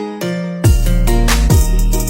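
Background music: plucked guitar-like notes over a deep bass kick that drops in pitch, repeating in a steady beat.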